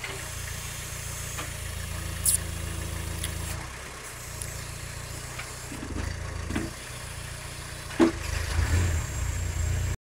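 Small tractor engine running under load, its note rising and easing as it drives the hydraulic backhoe swinging and digging into soil. A few sharp knocks from the bucket and digging, the loudest about eight seconds in.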